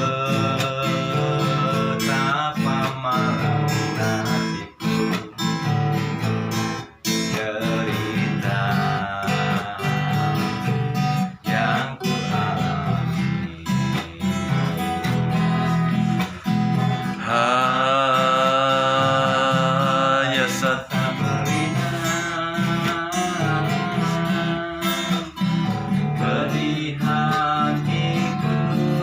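Acoustic guitar playing an instrumental passage of a song, strummed and picked, with a held melody line about two-thirds of the way through.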